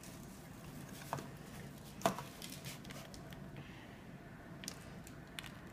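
Faint plastic clicks and knocks from a Play-Doh Fun Factory toy press as its plunger is pushed down to force dough through the die plate: a few separate ticks, the loudest about two seconds in, over quiet room tone.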